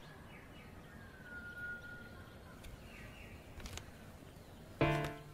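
Faint background with birds chirping and whistling, and a few small clicks. Near the end a loud low note breaks in suddenly and dies away, the start of background music.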